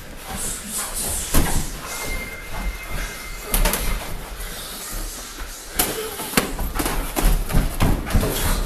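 Boxing gloves smacking against gloves and headgear while sparring: scattered sharp smacks, coming faster over the last few seconds.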